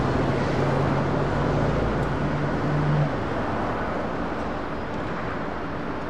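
Steady road and rail traffic noise at a grade crossing, with a low steady hum that cuts off suddenly about three seconds in, after which the noise settles a little quieter.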